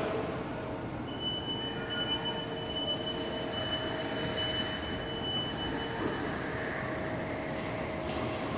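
Joloda Trailerskate automatic trailer-unloading system running as it moves a loaded rack out of a trailer: a steady rolling mechanical rumble, with a high steady squeal from about a second in until about six seconds.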